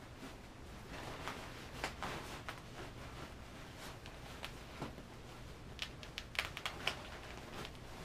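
Rustling and small knocks of things being moved around inside a fabric diaper bag, with a quick run of clicks a little before the end.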